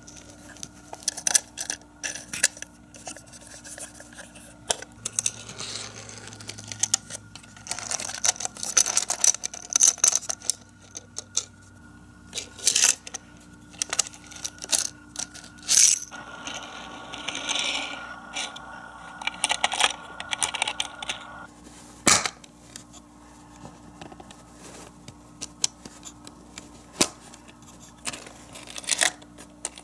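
Clicks and clacks of tiny Micro Machines toy cars and hard plastic playset parts being handled: cars set down and pushed through the garage bays, and a plastic door flap and lift snapping into place, many small knocks in irregular succession.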